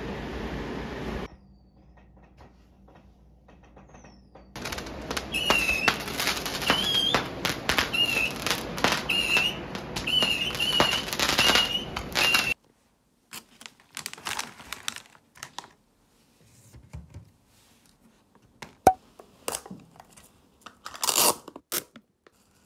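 Surf washing on a beach, then fireworks set off on the beach: a string of short whistles with sharp pops and crackles, lasting about eight seconds. After that comes light clicking and rustling, and near the end a paper lid is peeled off a plastic dessert cup.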